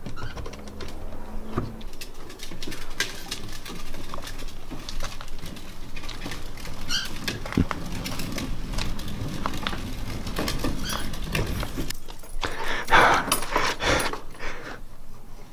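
Dogs moving about in and around a plastic ride-on toy car: scattered clicks, taps and rustles, briefly louder near the end.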